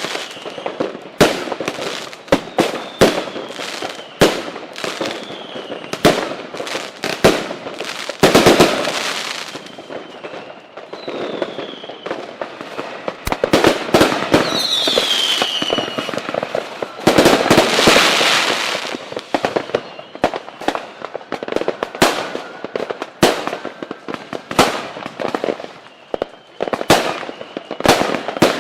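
Fireworks going off: a ragged string of sharp firecracker bangs with denser crackling volleys, and a couple of whistles falling in pitch, around 11 and 15 seconds in.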